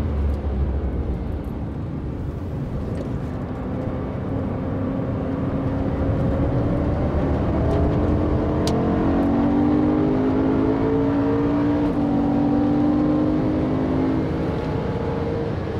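BMW M3's engine heard from inside the cabin over tyre and road noise, pulling harder with its note rising slowly through the middle and easing off near the end. There is a single sharp click partway through.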